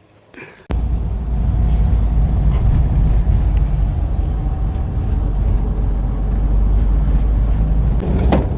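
Steady low rumble of road and engine noise inside a moving vehicle, starting suddenly about a second in. There is a single sharp click near the end.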